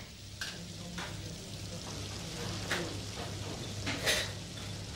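Professional kitchen sounds: a steady sizzling hiss over a low hum, with a few short clinks and knocks of plates and utensils as lobster is plated.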